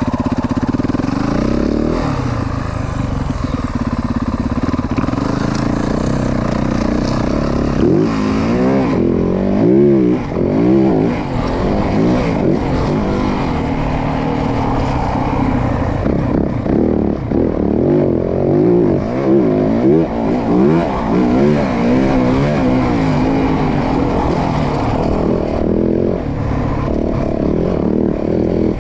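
Yamaha WR450F's single-cylinder four-stroke engine running at a steady pitch at first, then revving up and down over and over as the bike is ridden.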